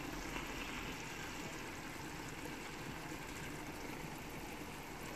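A pot of spiced vegetables simmering on the stove, giving a low, steady hiss; the vegetables are cooked through.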